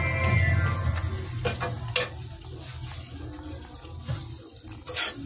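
A metal ladle stirring a simmering stew of beef skin in coconut-milk adobo sauce in a metal cooking pot. There are wet stirring sounds and a few sharp knocks of the ladle against the pot, twice near the start and once near the end, over a steady low hum.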